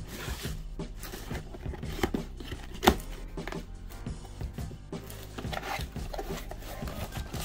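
Cardboard shipping box being opened by hand: flaps rustling and scraping, with two sharp knocks about two and three seconds in, over background music.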